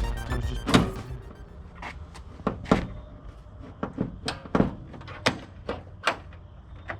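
A string of about a dozen sharp knocks and clicks, irregularly spaced, as hard parts are handled and set against one another. The tail end of background music stops about half a second in.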